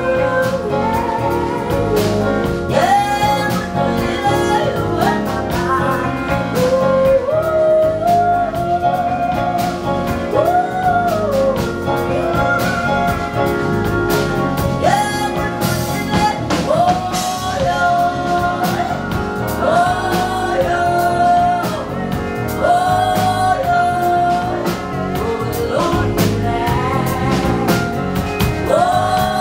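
A woman singing lead vocals live with a band: repeated phrases that rise onto long held notes with vibrato, over steady drums and bass.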